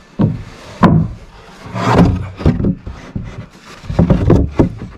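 Rough-sawn wooden boards being shifted and pushed into place on a roof deck, knocking and scraping against the neighbouring boards: several sharp wooden knocks, a longer scrape about two seconds in, and a cluster of knocks near the end.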